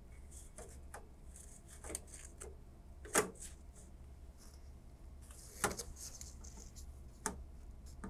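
A CPU heatsink being slid down onto its alignment pegs over the processor socket: a few faint clicks and light knocks, the clearest about three seconds in, with soft rustling of gloved hands.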